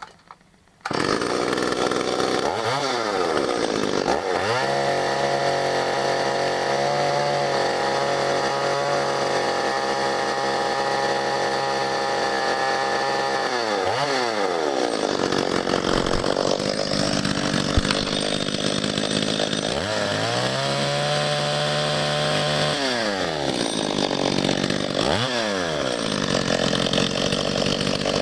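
Stihl 021C 35.2 cc two-stroke chainsaw engine, coming in suddenly about a second in. It is revved and held at full throttle for about nine seconds, drops back to idle, is revved again for about three seconds, gives one short blip, and settles to idle.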